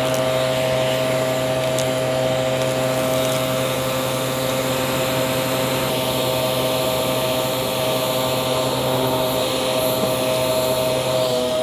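Aspiron vacuum cleaner running steadily, its motor holding a constant whine over the rush of airflow, with a few faint clicks of debris being picked up. Near the end the motor pitch dips briefly as the load changes.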